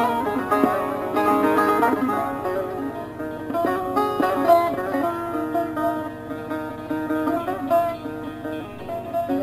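Instrumental break of a Turkish folk song with no singing: a plucked string instrument playing the melody over the backing.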